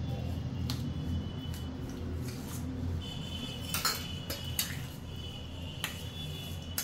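A spoon clinking against a metal pan at uneven intervals while jaggery is stirred into water to dissolve it, with a brief ringing around the middle. A steady low hum runs underneath.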